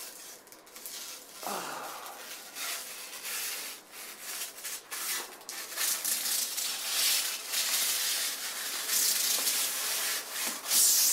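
Protective plastic film being peeled off, a long crackling, hissing peel that grows louder toward the end.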